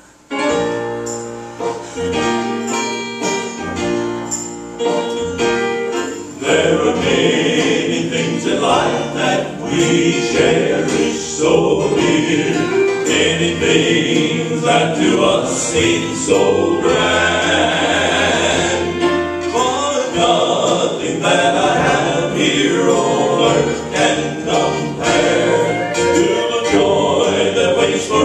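Male gospel quartet singing in close harmony with acoustic guitar accompaniment. A softer instrumental introduction opens, and the four voices come in, louder, about six seconds in.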